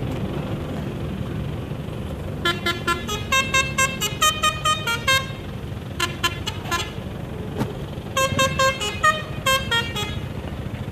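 A bus's multi-tone 'telolet' horn playing a tune in three runs of short, quick notes of changing pitch, over the low rumble of the bus engine.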